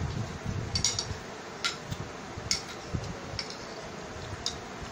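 Metal spoons clinking and scraping against ceramic plates as biryani is scooped up, about five light, sharp clinks roughly a second apart.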